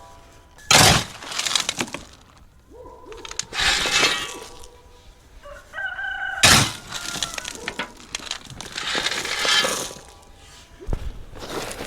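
Gravel being shovelled and poured around a drain pipe: several rattling scoops of stone, with sharp knocks about a second in and again past the middle.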